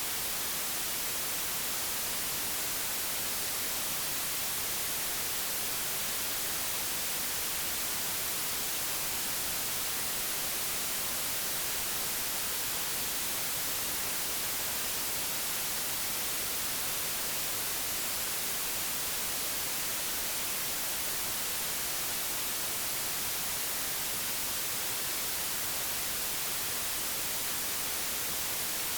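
Computer-generated pure white noise: a steady, even hiss across the whole range, unfiltered and unchanging.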